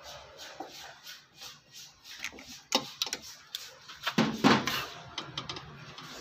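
Pliers and hands working on a rice cooker's wiring connector: faint rhythmic scratching, then several sharp clicks and a louder cluster of knocks and rattles of small plastic and metal parts about four seconds in, after which a low steady hum comes in.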